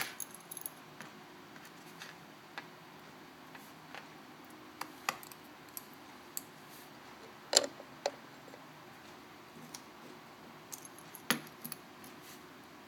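Scattered small metallic clicks and taps of tools and tiny metal parts against the opened iPhone 4S during reassembly, the loudest about halfway through and another near the end, over a faint steady hum.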